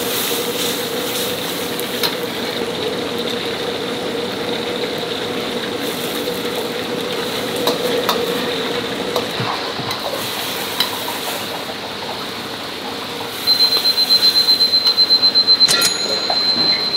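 Restaurant kitchen cooking: food frying and sizzling with a steady background hum. Near the end an electronic beeper sounds a fast, high-pitched run of beeps for about three seconds.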